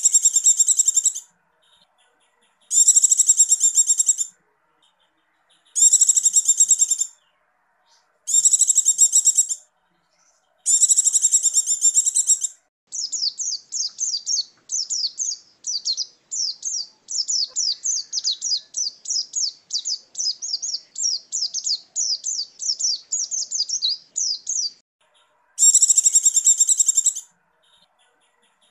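White-eye (pleci) singing, in the styles the title calls ngecir and ngalas. First come short, dense bursts of high twittering song about every three seconds. From about halfway there is a long run of quick, down-slurred chirps lasting some twelve seconds, and one more twittering burst follows near the end.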